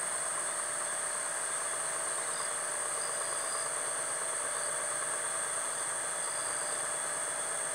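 Steady outdoor ambience: a continuous high-pitched insect trill over a low, even hum of distant machinery.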